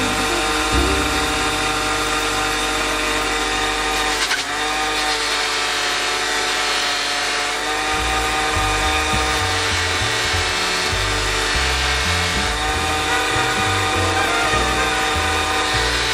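Bench buffing machine (a bench grinder with a cloth buffing wheel) running steadily, used to polish aluminium motorcycle parts, under background music whose bass line comes in about halfway through.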